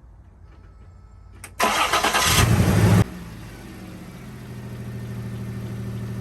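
1995 Toyota 4Runner's 3.0 V6 cranking on the starter for about a second and a half, catching, and settling into an idle. The owner hears a misfire that makes the engine shake violently, along with a little belt squeak and an exhaust leak.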